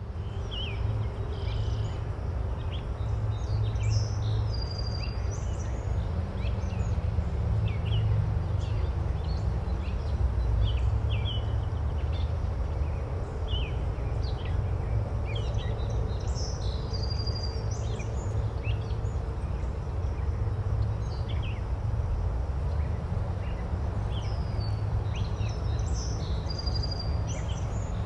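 Birdsong ambience: scattered short chirps and whistled calls from small birds, with a similar burst of calls recurring about every twelve seconds, over a steady low rumble.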